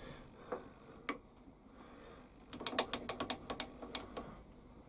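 Small metal clicks from a Warco WM180 lathe being moved and adjusted by hand: two single clicks, then a quick run of about a dozen clicks starting about two and a half seconds in.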